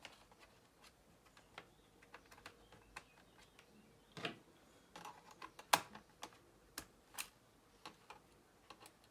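Scattered light clicks and taps of a Toshiba C850D laptop's plastic parts being handled and taken out during disassembly, the sharpest click a little past the middle.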